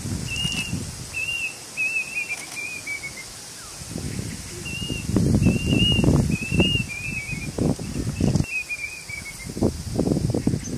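Male plaintive cuckoo singing in two bouts, each a few high, clear whistled notes followed by a quicker run of notes falling in pitch. Low, gusty rumbles of storm wind buffet the microphone under the song and are louder than it.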